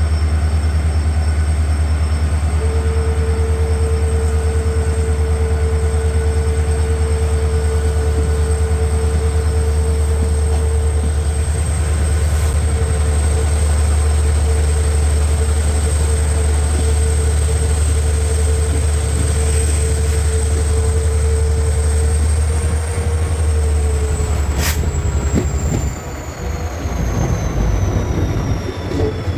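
EMD WDP4 diesel locomotive (16-cylinder two-stroke EMD 710 engine) humming with a heavy low drone, heard from the coach behind it. A steady whine joins a few seconds in. Near the end the whines slide down in pitch and the drone drops away as the engine eases off, with one sharp click.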